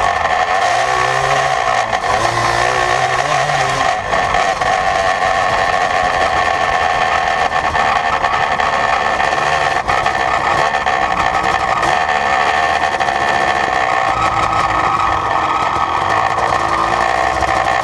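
Yamaha Blaster's single-cylinder two-stroke engine running loudly through an FMF Fatty pipe and Power Core 2 silencer, heard close up from the nerf bar. Its pitch wavers up and down for the first few seconds, then holds steadier.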